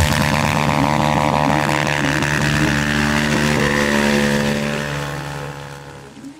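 Supermoto motorcycle engine held at high revs during a rear-wheel burnout. It fades away over the last two seconds or so as the burnout ends.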